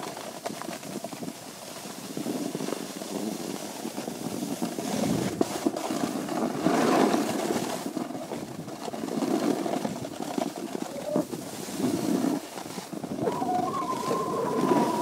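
Rushing noise of skiing down a packed-snow trail: snow sliding and scraping under the skis, mixed with air rushing over the microphone, swelling and easing unevenly. A faint high, steady tone comes in near the end.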